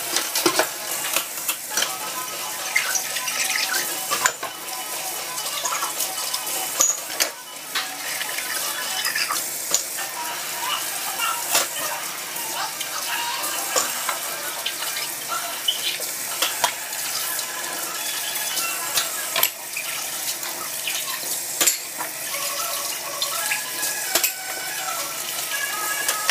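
Kitchen faucet running in a steady stream into a stainless steel sink while dishes and cutlery are washed by hand, with frequent clinks and knocks of plates and utensils.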